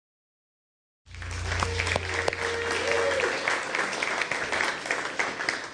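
Congregation applauding at the end of a worship song, starting abruptly about a second in, with the band's held low note under it that stops a couple of seconds later. The clapping thins out near the end.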